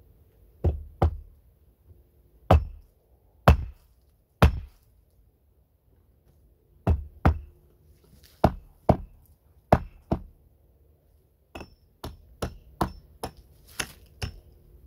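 Sharp hatchet blows, about eighteen strikes: spread out or in pairs at first, then coming faster, roughly two a second, near the end.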